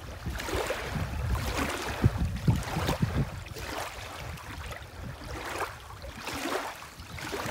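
Small lake waves lapping and splashing in the shallows, with wind buffeting the microphone as a low rumble. Several sharper splashes come about two to three seconds in.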